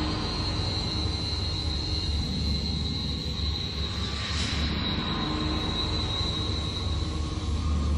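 Dark ambient sound design: a long-held, eerie high-pitched tone over a steady low rumbling drone, with a breathy swell about four seconds in.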